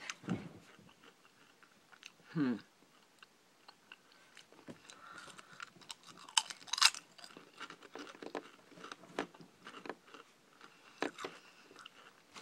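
Crisp, thin potato chip being bitten and chewed: a run of small sharp crunches, with the loudest bite about six and a half seconds in.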